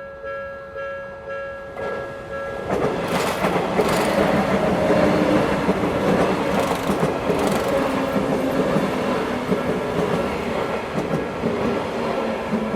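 Odakyu-type railway level-crossing alarm ringing at about two strikes a second, then, from about three seconds in, a Sotetsu train passing close over the crossing, its running noise and wheel clacks drowning out the alarm.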